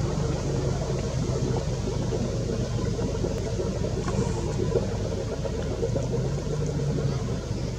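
Boat engine idling: a steady low hum.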